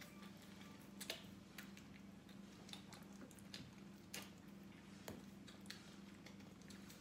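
Faint, irregular wet clicks and smacks, about one a second, from a young goat suckling milk from a bottle's rubber teat, over a faint steady low hum.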